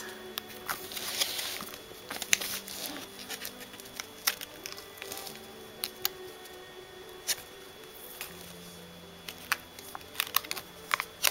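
Plastic binder sleeves crinkling and clicking as the pages of a jumbo card binder are turned, a handful of sharp crackles spaced a second or two apart. Soft background music with held notes plays underneath.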